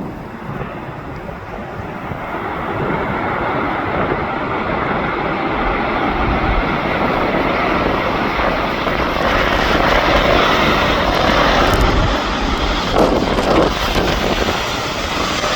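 A fixed-wing aircraft's engines passing close by, building over several seconds to a loud, steady rush and easing slightly near the end, with wind buffeting the microphone.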